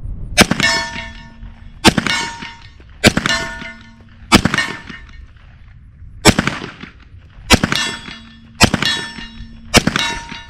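ZEV OZ9c 9mm pistol fired unsuppressed, eight shots at a steady slow pace, each followed by a metallic ring. The pistol cycles through every shot although it is fouled from earlier suppressed shooting.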